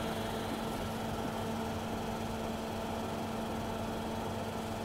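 Steady room tone: a constant low electrical hum with hiss underneath, like a venue's ventilation or sound system.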